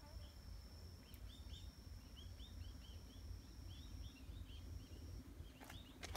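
Faint woodland ambience: a small bird chirping over and over, a few short notes a second, over a long, thin, steady high tone and a low rumble. A few sharp clicks near the end.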